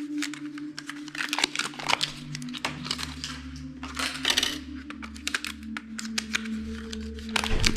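Quick small clicks, taps and crinkling from hands handling computer parts and their plastic, a dense run of short sharp noises throughout, over steady low tones.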